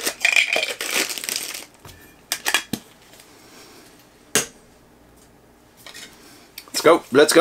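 Plastic packaging crinkling for under two seconds as a figure is handled out of a Funko Soda can, followed by a few sharp clicks and knocks of small items being handled and set down.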